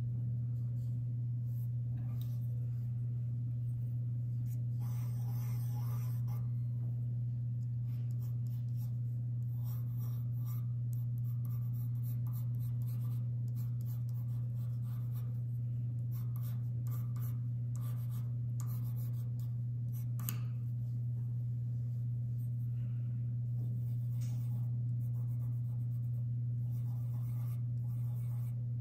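Staedtler Mars Lumograph black pencil sketching on paper: many short, irregular scratchy strokes over a steady low hum.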